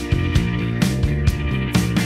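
Background music with a steady beat, drum hits over sustained pitched notes.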